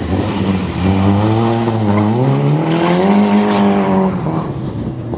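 Peugeot 106 rally car's engine revving hard as it drives the course: the engine note climbs about two seconds in, holds high, and drops away about four seconds in.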